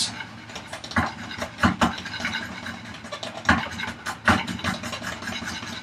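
A hand tool scraping and shaving wood in repeated strokes, several of them sharper and louder, as the opening in a wooden vise chop is widened a little at a time.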